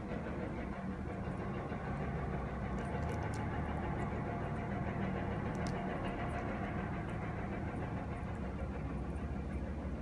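A steady low machine hum, like an engine or appliance running, with a few faint ticks about three and five and a half seconds in.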